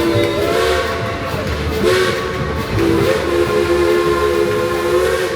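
Live band music: long held chords that step to new notes every second or two, over a low pulsing beat.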